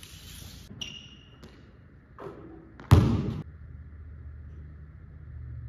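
A basketball bouncing once on a hardwood gym floor: a single loud thud about three seconds in, with a short tail. A small click with a brief metallic ring comes about a second in.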